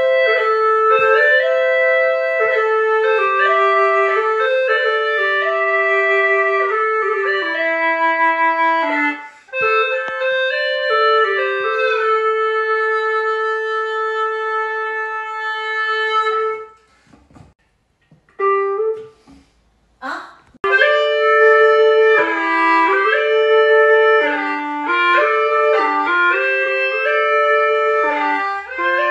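Hulusi (Chinese gourd flute) played in duet with a second bamboo wind pipe: a slow melody with long held notes. The music breaks off about 17 seconds in and starts again about three seconds later.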